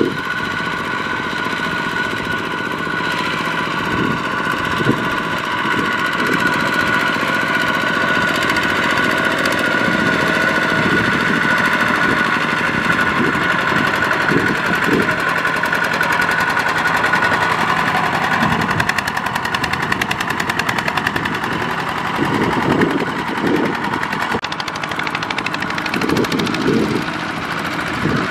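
Single-cylinder diesel engine of a two-wheel walking tractor running under load as it hauls a loaded trailer through deep mud, a rapid knocking beat that swells and eases unevenly.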